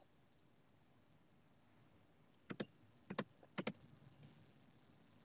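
Near silence broken by three pairs of faint, sharp computer mouse clicks, between about two and a half and four seconds in.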